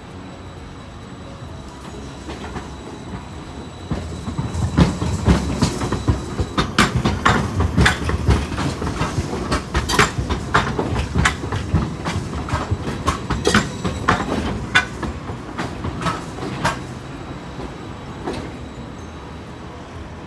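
Hiroshima Electric Railway 5000-series Green Mover low-floor articulated tram running over the station pointwork into the platform. Its wheels clatter and knock irregularly over the switch and crossing gaps from about four seconds in, under a low rumble, and die away after about seventeen seconds.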